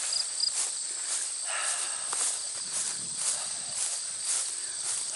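Footsteps swishing through tall hay at a steady walking pace, about two steps a second, over a constant high-pitched insect chorus.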